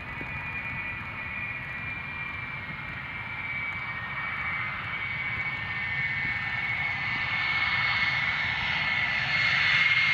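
MiG-31K jet fighter's engines running as it rolls out after landing with drag chutes deployed: a high jet whine over a low rumble, the whine dropping slightly in pitch and growing louder as the jet nears.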